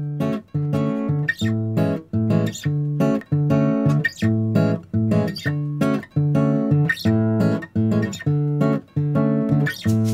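Background music: guitar chords strummed in a steady, even rhythm.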